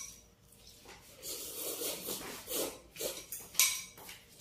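A spoon scraping and clinking against a small bowl while eating, in short irregular bursts, with the sharpest clink about three and a half seconds in.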